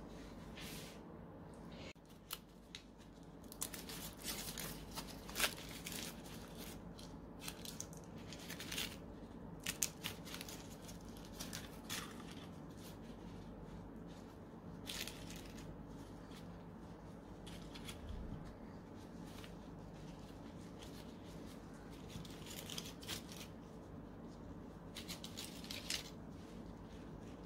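Foil wrappers of processed cheese triangles crinkling and tearing as they are peeled open, with the rustle of plastic food-prep gloves. The rustling comes in short spells, busiest in the first half and again near the end.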